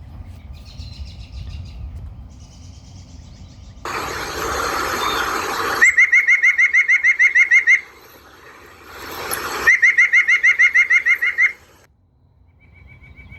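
Nuthatch calls: two loud, rapid series of nasal notes, about nine a second and each nearly two seconds long, one after the other as in a call and response. Faint higher calls come first, and a rushing noise comes just before each series.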